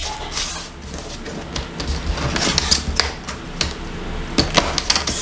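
Plastic screen bezel of a Dell Chromebook 11 3100 being pressed onto the display lid by hand, its clips snapping into place in a run of sharp clicks, with rubbing and handling noise between.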